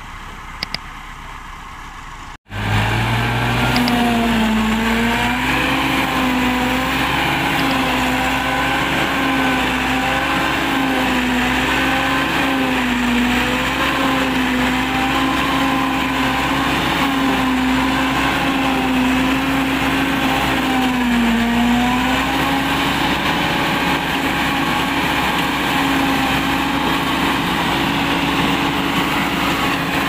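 Massey Ferguson tractor engine driving a Celmak silage chopper through its PTO as corn plants are fed in, running steadily with a pitch that sags and recovers every few seconds. It is quieter for the first two seconds, then much louder and closer.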